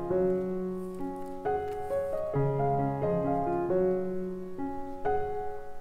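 Background piano music: a light melody of short notes over chords, with fresh chords struck several times.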